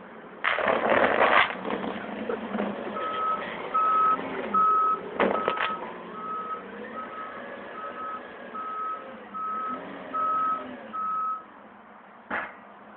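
A forklift's tyres run over bubble wrap: a loud burst of crackling pops about half a second in, a few sharp pops around five seconds in and one more near the end. From about three seconds in, the forklift's reversing alarm beeps steadily, about ten beeps a little under a second apart, over its engine note rising and falling.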